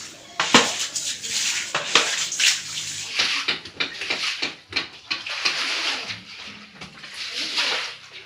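Shallow floodwater splashing and sloshing in uneven bursts, with a few sharp knocks and clatters, one about half a second in.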